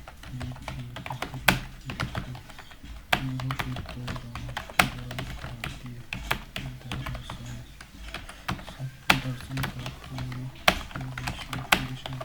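Continuous typing on a computer keyboard: a quick patter of keystrokes, with a louder key strike every second or so.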